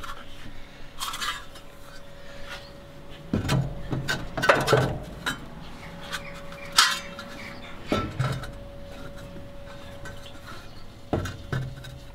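Stainless-steel flavorizer bars clanking as they are set one after another onto the rails over the burners of a Weber gas grill. There are several separate metal-on-metal clanks, the busiest stretch a few seconds in.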